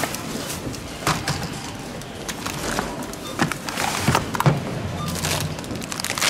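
Groceries being set down by hand on a supermarket checkout conveyor belt: plastic meat trays and a margarine tub knocking down, with plastic packaging rustling. Several short sharp knocks over a steady low background hum.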